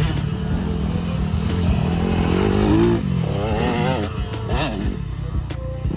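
Dirt bike engine revving, its pitch climbing for a few seconds, then dropping off and wavering up and down.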